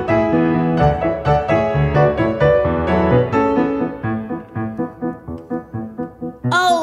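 Grand piano playing a passage of struck notes and chords, growing sparser and quieter in the second half.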